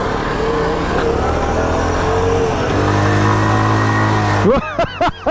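Honda CT110 postie bike's 105cc single-cylinder engine running steadily under way, heard from the bike being ridden, its note changing about halfway through. Near the end a few quick rising-and-falling sounds break in.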